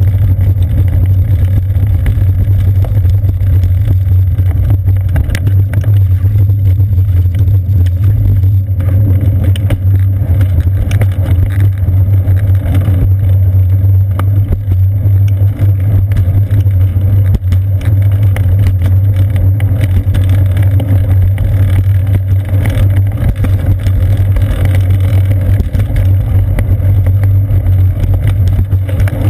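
Loud, steady low rumble of wind and road vibration picked up by a seat-post-mounted GoPro Hero 2 on a moving bicycle.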